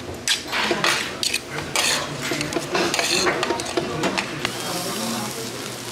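Two metal spoons stirring and scraping fried rice around a metal tray, with quick repeated clinks and scrapes against the pan and the rice sizzling.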